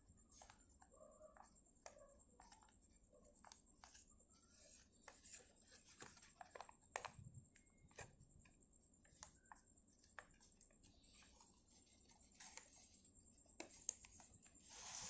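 Faint crackling and rustling of origami paper being folded and pressed into creases by hand, in irregular small clicks and short rustles, with a slightly louder rustle near the end.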